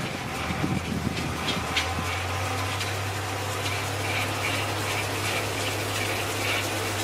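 Cats crunching dry kibble: a quick, irregular run of small crisp crunches. A steady low hum sets in about two seconds in and holds.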